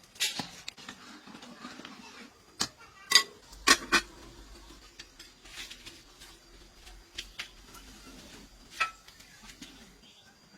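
Dishes and kitchen utensils clinking and knocking now and then, with a cluster of sharp clinks about three to four seconds in and another near the end.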